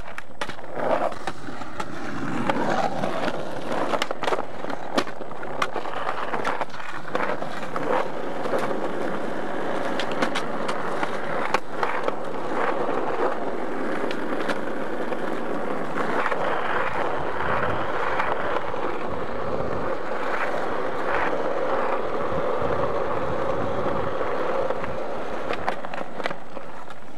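Skateboard wheels rolling on pavement, with repeated sharp clacks of the board snapping and landing during flatground tricks.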